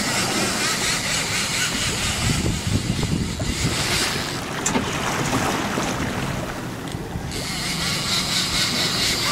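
Wind buffeting the microphone over choppy open water splashing around a sailing kayak.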